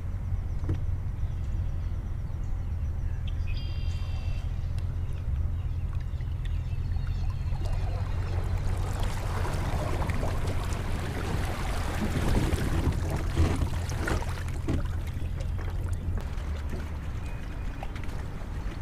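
Boat motor humming steadily while water splashes and sloshes, the splashing loudest in the middle stretch. A brief high chirp comes about four seconds in.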